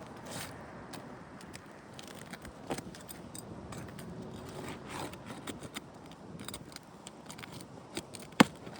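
Asphalt roof shingles being lifted and their nails worked loose: scattered scraping and light clicks, with one sharp knock near the end.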